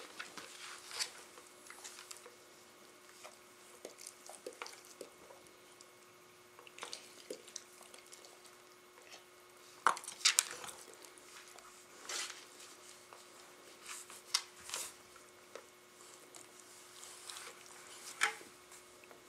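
Dogs play-scuffling: scattered sharp clicks and knocks, the loudest cluster about ten seconds in, over a faint steady hum.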